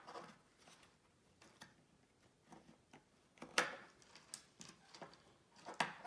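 Faint, scattered small plastic clicks and taps as wire pin terminals are pushed into a 32-pin PCM wiring connector by hand, with the two sharpest clicks about three and a half seconds in and just before the end.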